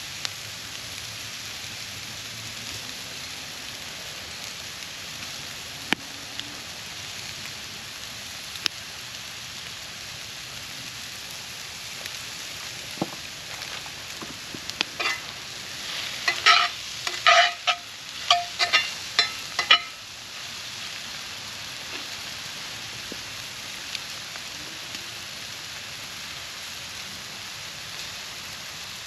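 Food sizzling in cast iron over a wood campfire, with a few sharp pops. About halfway through comes a quick run of loud, ringing metallic clinks of metal against the cast iron.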